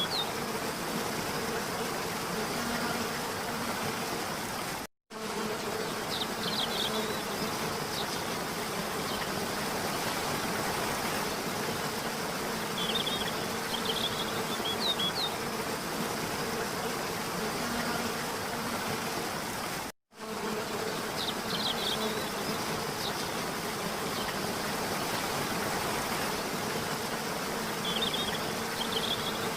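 Waterfall water rushing steadily under a steady low drone, with clusters of short high chirps every several seconds. The sound cuts out completely for a moment twice, about five seconds in and again about fifteen seconds later, as the track loops.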